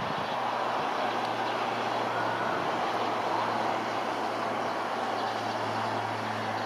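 Steady outdoor rush of distant road traffic and city noise, with a low steady hum underneath.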